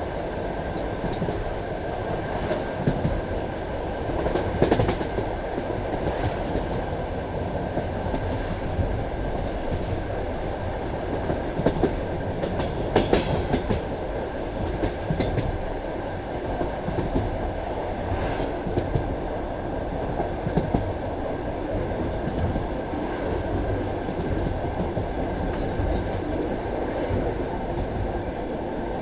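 Passenger railway carriage running at speed: a steady rumble of wheels on rails with irregular knocks from rail joints and a faint steady whine.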